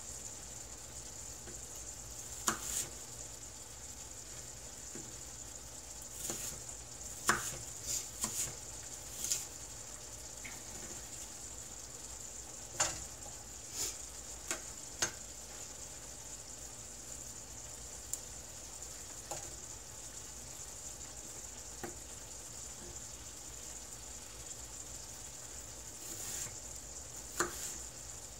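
Diced apples frying in a nonstick skillet: a steady sizzle with scattered sharp clicks and taps, most of them between about 6 and 15 seconds in.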